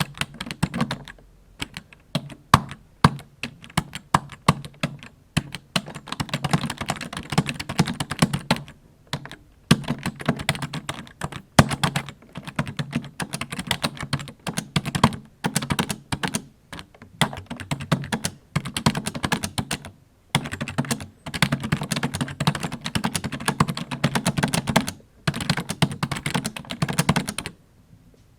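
Typing on a computer keyboard: fast runs of key clicks broken by short pauses every few seconds, with sparser, harder single keystrokes in the first few seconds.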